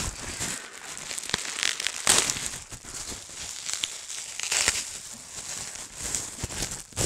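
Plastic bubble-wrap bag being crinkled and pulled open by hand: irregular rustling and crackling in uneven surges, with sharp little crackles.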